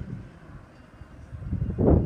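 Wind buffeting the microphone over the faint, distant running of Rotax Max 125cc two-stroke kart engines, with a strong gust near the end.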